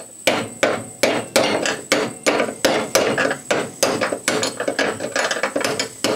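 Hammer strikes, about three a second, knocking the worn-out top bearing out of a riding-mower deck's spindle housing.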